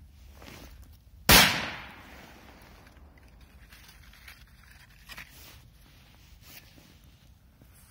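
Big Bomb firecracker exploding: one sharp bang about a second in, its echo dying away over half a second.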